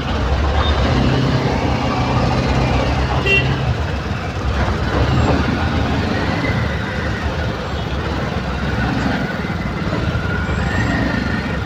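Dense, slow-moving highway traffic: truck and car engines running close by, with a short horn beep about three seconds in.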